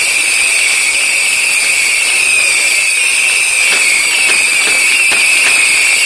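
Fireworks: a loud, steady hiss with a high whistle-like tone, and faint crackling pops from about halfway through.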